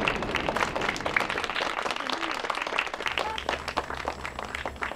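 Audience applauding, the clapping thinning out and fading toward the end.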